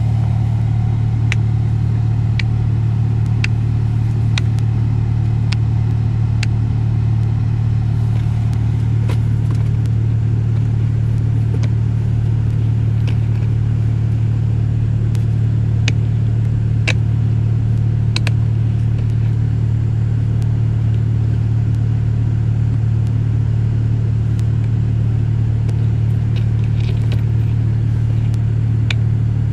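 Silicone pop-it fidget bubbles being pressed, giving scattered faint sharp pops, about one a second at first and then irregular, over a steady loud low hum of the car's air inside the cabin.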